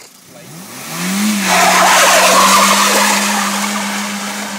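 Small hatchback's engine revving up and held at high revs while its tyres spin and skid on tarmac. A loud hissing screech of tyre noise comes in about a second and a half in and slowly fades.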